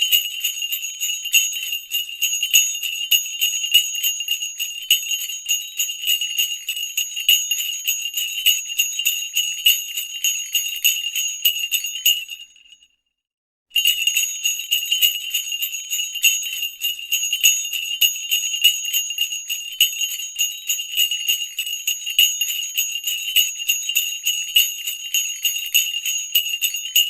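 Sleigh bells shaken continuously in a steady, bright jingle. About halfway through they fade out for a second of silence, then start jingling again.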